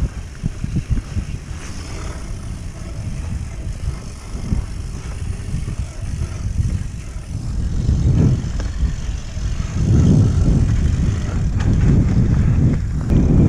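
Mountain bike rolling fast down a leaf-strewn dirt trail: a dense low rumble of wind on the head-mounted camera's microphone, with tyre and frame rattle. It gets louder about two-thirds of the way through as the speed picks up.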